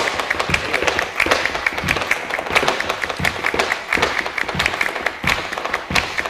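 Flamenco palmas and a dancer's zapateado footwork: quick, sharp hand claps and shoe stamps in a fast rhythm.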